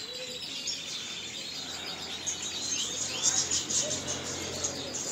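A flock of small aviary birds, canaries and finches, chirping and twittering together. The quick rising and falling chirps thicken about halfway through.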